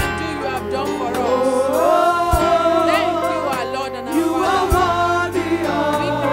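Gospel worship song: a woman's voice leads the singing with backing singers, over held chords and bass, with a couple of deep beats.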